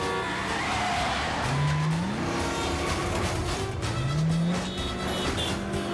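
Music mixed with a vehicle engine revving twice, its pitch rising each time, about two seconds apart.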